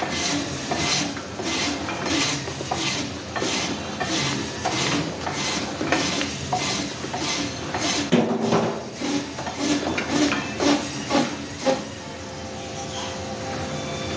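Meat band saw cutting a frozen seer fish into steaks: a short rasp about one and a half times a second as each slice is pushed through the blade, becoming less regular after about eight seconds. Near the end the saw runs on with a steady hum and no cutting.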